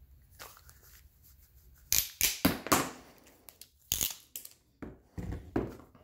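Handheld PEX stainless-steel ring crimp tool in cutting mode, its jaws biting through a stainless steel clamp ring on a PEX joint: a cluster of sharp crunching snaps about two seconds in, then a few more clicks and crunches over the next few seconds.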